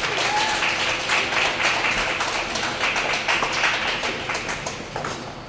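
Audience applause: many overlapping hand claps that thin out near the end.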